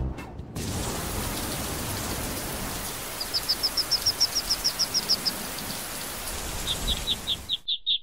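Steady rain hiss that starts about half a second in and cuts off suddenly near the end, with ducklings peeping through it in quick runs of high chirps, once in the middle and again just before the end.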